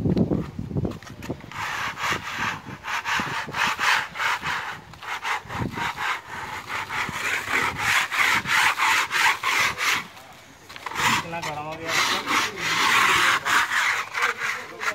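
A flat metal hand scraper being dragged over a rough, textured-coated cement wall in quick repeated scraping strokes. The strokes pause briefly about ten seconds in, then start again. A low knock of handling comes near the start.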